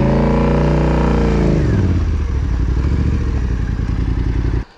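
Yamaha Ténéré 700's parallel-twin engine revving up under throttle and dropping back, then running steadily at low revs as the bike pulls through a slippery rocky section. The sound cuts off suddenly near the end.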